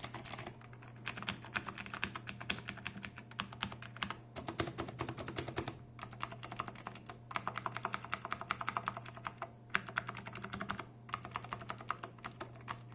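Typing on a mechanical keyboard fitted with thick PBT OEM-profile keycaps: fast runs of key clacks in bursts, broken by brief pauses several times.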